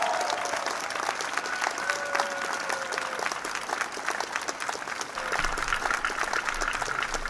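Crowd applauding with steady, dense clapping, a few voices calling out about two seconds in.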